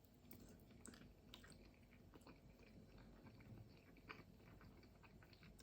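Faint chewing of a piri piri chicken wing: soft, irregular mouth clicks scattered throughout.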